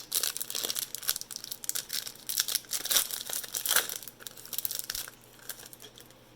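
Plastic wrapper of a pack of football trading cards crinkling and tearing as it is ripped open by hand. The sound goes quieter about five seconds in, leaving only light handling.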